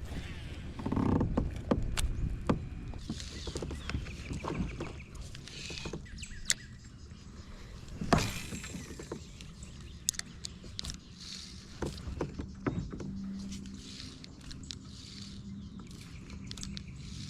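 Handling sounds on a small paddle craft: scattered clicks and knocks of gear against the hull, and short bursts of water movement. A low steady hum comes in about two-thirds of the way through.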